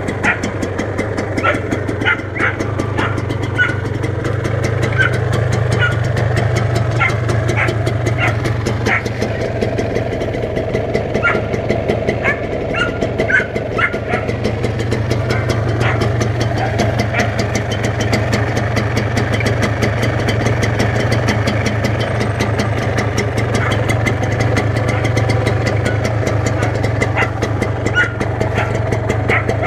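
Kawasaki Victor S 150 motorcycle engine idling steadily, with short high chirps heard over it now and then.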